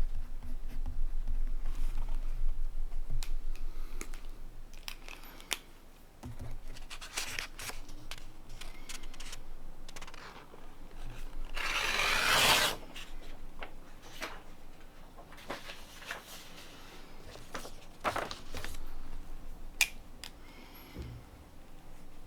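Fountain pen nib (Montblanc Meisterstück 144) scratching across paper in short, irregular strokes, with a longer, louder brushing scrape about halfway through.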